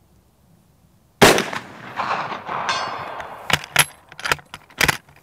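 A single shot from an 11mm Mauser Model 71/84 bolt-action rifle about a second in, its report echoing and dying away over about two seconds. It is followed by a few sharp metallic clacks as the bolt is worked to eject the spent case and chamber the next round.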